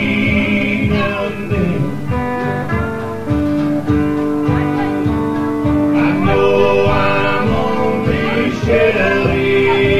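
Country song played live on acoustic guitar with a man singing over a steady beat, holding one long note in the middle.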